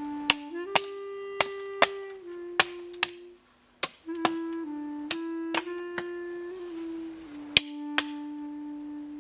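About a dozen sharp knocks, spaced unevenly, over a woodwind-like melody in slow held notes and a steady high buzz of insects.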